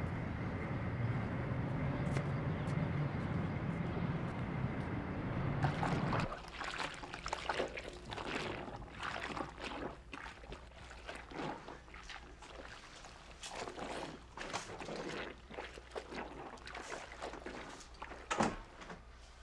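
Steady city street and traffic noise that cuts off abruptly about six seconds in. A string of short, irregular handling noises follows, at varying loudness, with the loudest near the end.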